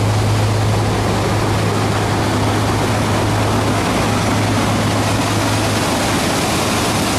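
Boat engine running steadily, a constant low hum under a loud, even rushing noise.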